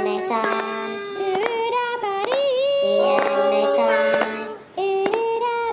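A chorus of cartoon Minions singing in high-pitched voices, with sharp claps through the song and a brief break just before the end.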